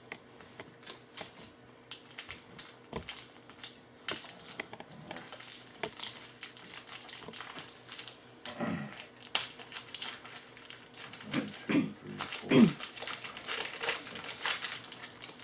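Topps Magic football trading cards being handled and flicked through, a run of quick small clicks and rustles, with a few louder knocks and rubs near the middle and end.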